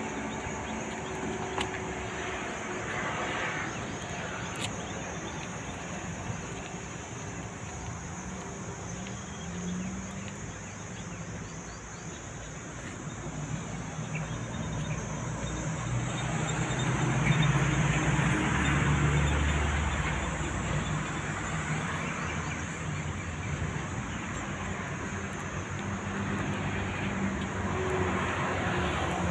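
Road traffic noise over a steady hiss: a motor vehicle's engine hum swells and fades, loudest about two-thirds of the way through.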